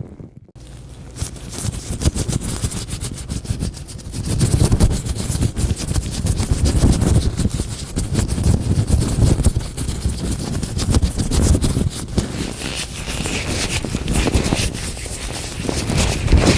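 Latex gloves handled close to the microphone: a dense, crackling rustle of rubbing and stretching latex, with low thumps from handling. It breaks off briefly at the very start.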